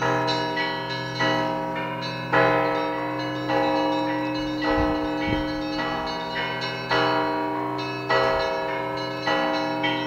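Russian Orthodox belfry bells ringing: several bells of different pitches struck by hand in a steady pattern, a new stroke about once a second over a lingering low hum from the large bell, the strongest stroke about two and a half seconds in.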